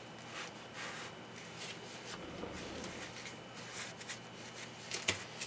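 Faint rustling and handling sounds of hands fitting and wrapping a band around a shin guard and sock on the leg, with a sharper tick about five seconds in.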